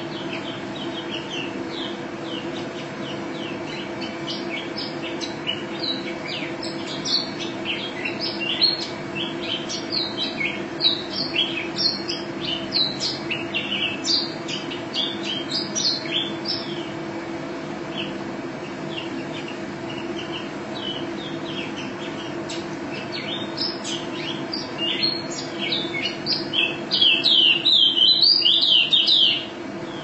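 White-eye (pleci) singing a long run of quick, high chirping notes, busiest in the middle, building near the end into a dense, loud rolling trill that stops abruptly. A steady low hum runs underneath.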